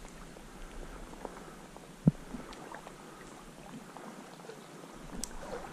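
Low, even sound of slow stream water moving around the wading angler, with one sharp knock close by about two seconds in.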